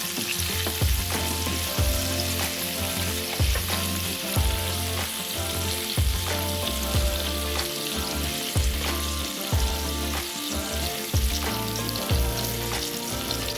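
Food sizzling in a hot frying pan, a steady crackling hiss, over background pop music with a regular drum beat and bass.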